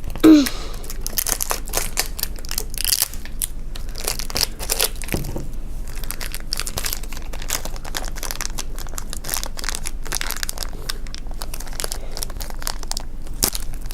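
Plastic wrapping crinkling and tearing in irregular bursts as a surprise toy's wrapped layers are unwrapped by hand.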